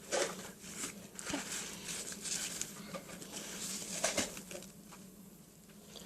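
Light rustling and soft taps of hands handling a grosgrain ribbon hair bow and pressing a glued bottle-cap centre onto it, in irregular short bursts over a faint steady hum.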